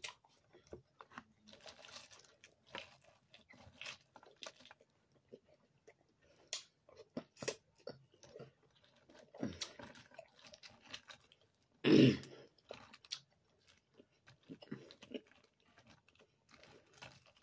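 Boiled crawfish being peeled and eaten: shells cracking and snapping under the fingers in short scattered clicks, with chewing and lip smacking, and one louder burst about twelve seconds in.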